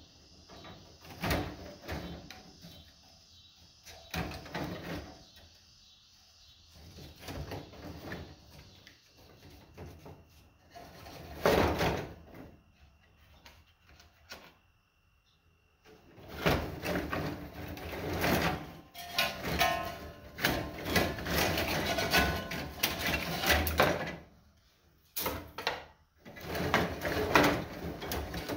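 Copper bars from an armature's windings clinking, rattling and scraping against each other as they are pulled out by hand and handled on a pile of scrap bars. It is sporadic at first and becomes a steady clatter a little past halfway.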